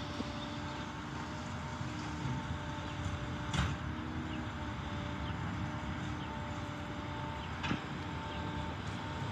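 Rear-loader garbage truck running with a steady hum while bulky items are loaded into its rear hopper, with two sharp knocks about three and a half and seven and a half seconds in.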